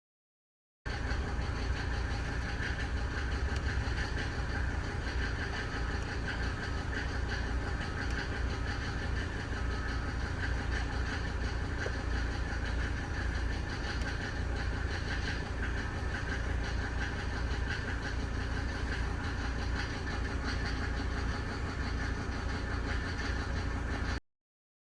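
1992 Mercedes-Benz 300D's turbodiesel engine running steadily at idle.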